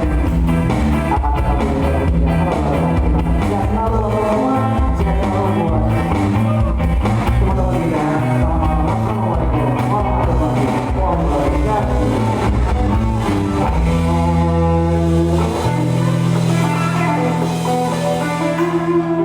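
Band music with guitar, bass and drums in a rock style, played at full tilt; about two-thirds of the way through the beat drops away and a chord with a low bass note is held to the end.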